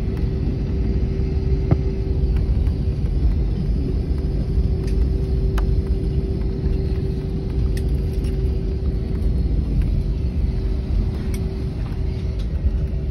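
Airliner cabin noise on the ground before takeoff: a steady low rumble with a steady mid-pitched hum running through it. A few faint clicks come and go.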